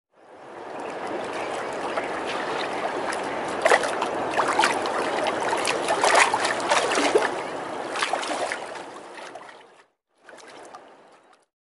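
Rushing river water with scattered splashes. It fades in at the start, stops near the end, and comes back briefly.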